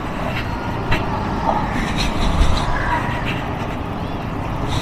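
Yamaha NMAX 155 scooter engine running at low speed over a rough dirt road, with other motorcycles close ahead. A few short knocks sound about a second in and again halfway through.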